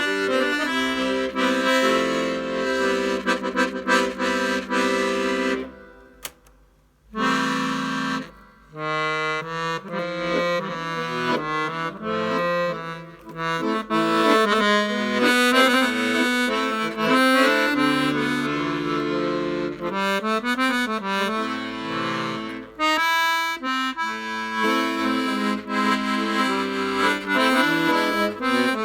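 Hohner Student 72 piano accordion played, a melody over chords, freshly repaired and tuned, with a short pause about six seconds in.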